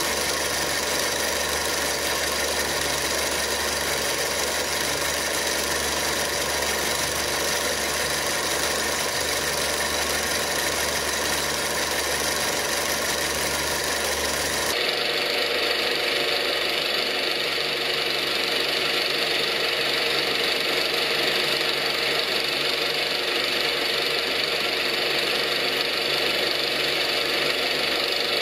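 Luch-2 8mm film projector running steadily, its motor and film transport making an even mechanical clatter. The tone of the noise changes abruptly about 15 seconds in.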